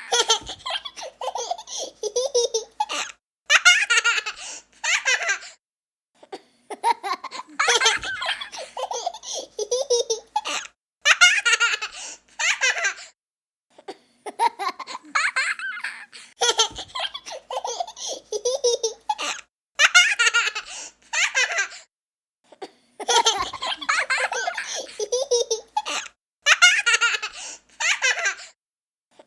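A young child laughing in repeated bouts a few seconds long, each broken off by a brief silence before the next begins.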